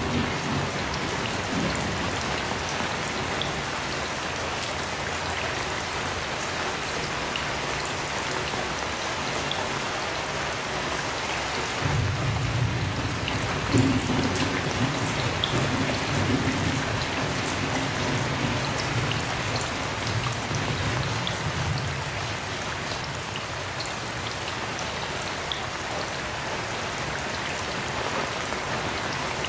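Heavy rain falling steadily, with scattered sharp drop ticks. A long roll of distant thunder starts about twelve seconds in, is loudest a couple of seconds later and rumbles on for about ten seconds before fading.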